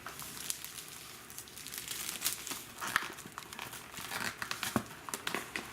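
Packaging on a fireworks assortment being opened and handled, with irregular crinkling and crackling throughout.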